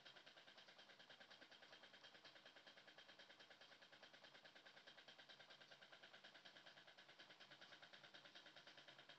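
Near silence: a faint, steady room hum with a fast, even flutter.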